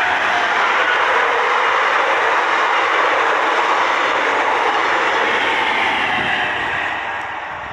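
RENFE S-450 double-decker electric commuter train passing close by, a steady rush of wheel and running noise that begins to fade near the end as the train draws away.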